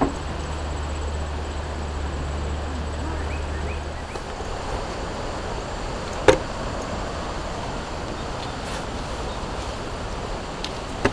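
Old ZIL truck's engine running with a low, steady hum that stops about four seconds in. After that, shovels work wet sand, with one sharp, loud metallic knock a little past halfway.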